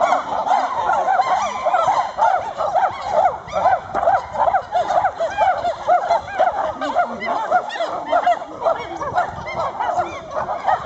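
A group of chimpanzees calling together: a dense chorus of short, overlapping hooting calls that rise and fall in pitch, several each second.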